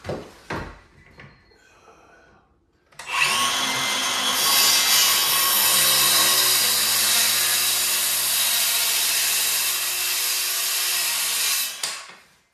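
Cordless circular saw cutting off the end of a timber door lining: a few handling knocks, then about three seconds in the saw spins up and cuts steadily for about eight seconds before stopping near the end.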